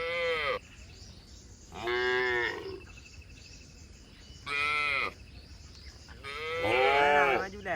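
Cattle mooing: four calls one after another, each about a second long, the last one the longest and loudest.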